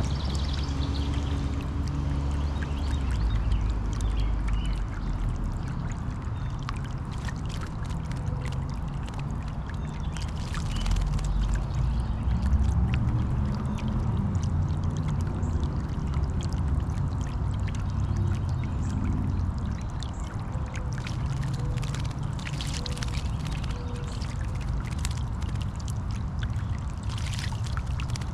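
Saillong solar bird bath fountain spraying, its water splashing and trickling steadily back into the basin.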